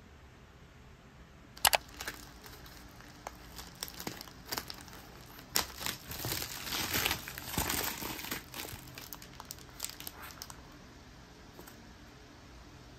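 Bubble wrap and plastic packaging crinkling as a parcel is cut open with scissors and unwrapped. It starts about a second and a half in with a couple of sharp clicks, is busiest in the middle, and dies away after about ten seconds.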